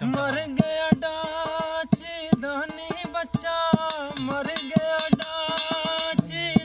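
A man singing a Punjabi folk song in long held notes with bends and turns, accompanied by hand beats and spoon taps on an upturned steel bowl used as a drum.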